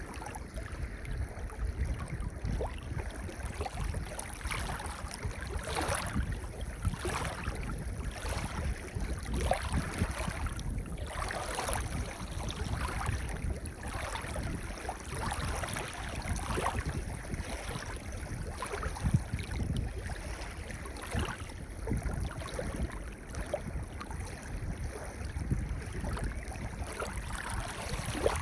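Gentle waves washing onto a pebble beach: a low steady rumble of surf with repeated brief hissing rushes and rattles of water running through the stones.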